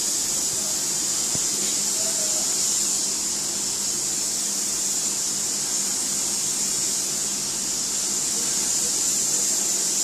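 Steady, high-pitched hiss of rushing air, with a faint steady hum underneath.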